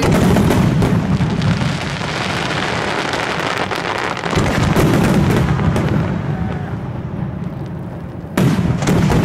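Aerial firework shells bursting in a dense barrage, booms and crackle overlapping without a break. A fresh volley of loud bursts comes in suddenly near the end.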